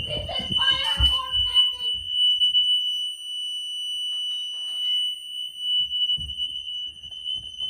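Fire alarm sounding one continuous, steady high-pitched tone.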